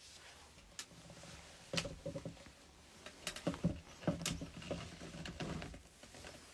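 Handling noise on a phone's microphone: a few seconds of faint clicks, bumps and rustling as the phone and the clothing near it are moved.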